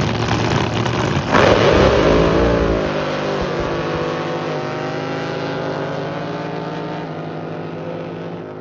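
Drag boat's engine running hard, suddenly growing loud about a second in as the boat passes. Its pitch then dips and the sound slowly fades.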